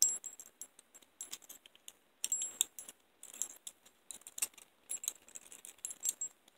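Steel hinged handcuffs being handled: irregular metallic clicks and clinks, several a second, with a bright ringing.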